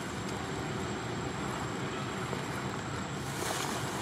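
Steady rushing outdoor background noise with no distinct event, and a brief rise in high hiss about three seconds in.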